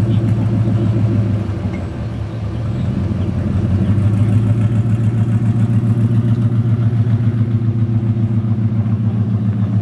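Ford Mustang GT's 5.0-litre V8 exhaust as the car pulls away slowly: a steady, deep engine note with a regular pulsing, easing off briefly about two seconds in before coming back up.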